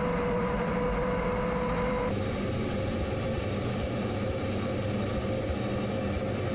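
Su-25 ground attack jet's engines heard from inside the cockpit in flight: a steady rushing noise with a constant whine. The tone and hiss shift slightly about two seconds in.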